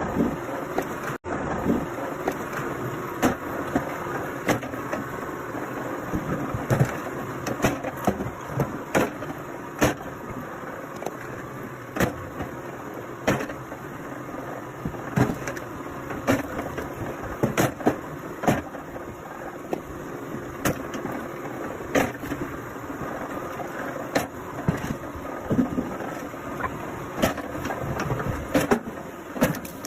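An engine-driven wood-processing machine running steadily, with repeated sharp cracks and knocks of wood, one or two a second at irregular intervals.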